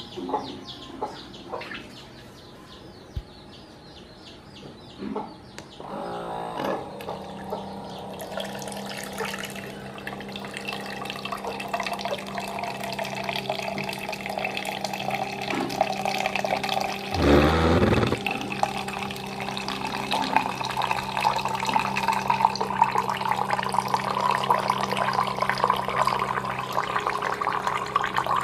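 Small battery-powered electric water-jug pump (GSF foldable gallon pump) humming steadily as it pumps drinking water out of a gallon bottle, with water splashing from its spout into a plastic container and growing louder over time. A few clicks come in the first seconds, the pump hum starts about six seconds in, and there is one brief loud burst about two-thirds through.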